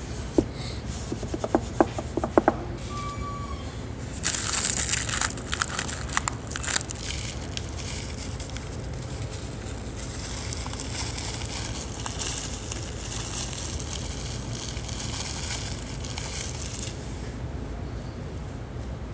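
A few sharp clicks, then long stretches of scraping and crinkling from parts being handled while a Samsung Galaxy S7 is worked on.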